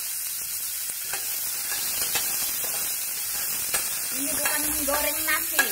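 Tarap seeds frying in a little oil in a pan: a steady sizzle, with scattered clicks and scrapes of a spatula stirring them.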